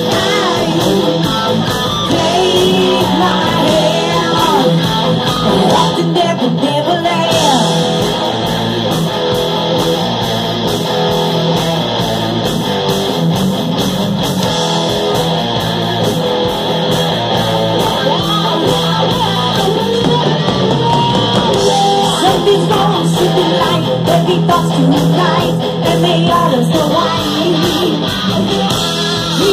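Live rock band playing: a woman singing over amplified electric guitar and drums.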